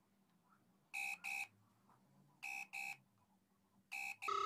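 Ringing tone of an outgoing phone call, heard through the phone's loudspeaker: three double beeps about a second and a half apart, then a short, lower, different tone near the end.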